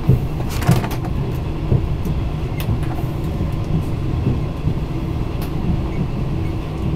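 Passenger train running along the rails, heard from inside the carriage: a steady low rumble with a few sharp clacks, the loudest under a second in.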